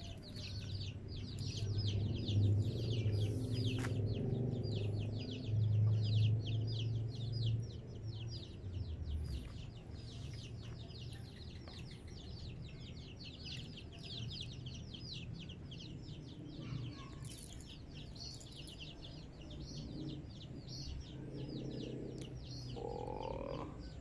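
Outdoor ambience of rapid high chirping, several strokes a second, going on throughout, with a low hum during the first several seconds.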